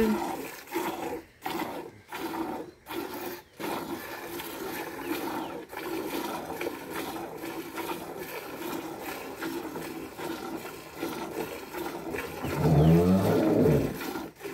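Cattle on the farm: one long, low moo near the end, over a steady background.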